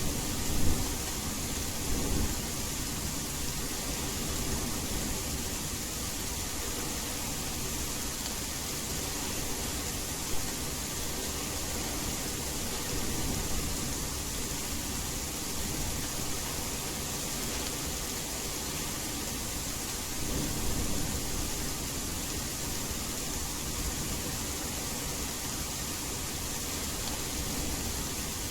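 Steady rain, an even hiss, with soft low rumbles of distant thunder swelling about a second in and again about two-thirds of the way through.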